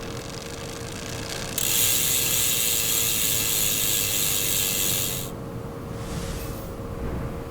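A rapid mechanical ratcheting buzz starts suddenly about a second and a half in, runs for almost four seconds and then dies away. Faint ticking comes before it.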